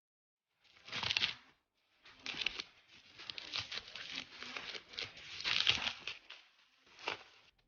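Packaging being handled and torn open, crinkling and tearing. There is a short burst about a second in, then a long stretch of uneven rustling, and another brief burst near the end.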